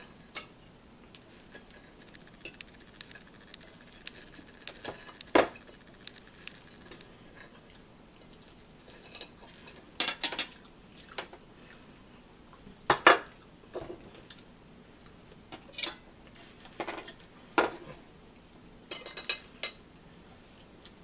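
Metal forks clinking and scraping against ceramic dinner plates in short, scattered knocks, a few of them louder, over a quiet room.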